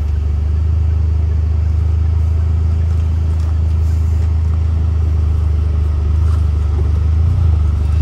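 Engine and road noise of a Mahindra Thar heard from inside its cabin while it drives slowly: a steady low drone that rises a little near the end.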